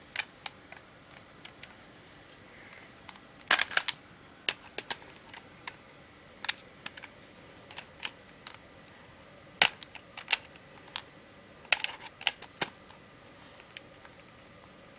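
Irregular sharp clicks and knocks of tools prying and tapping at a plastic Xbox controller shell, with a quick cluster of louder knocks about three and a half seconds in and another hard knock near the middle.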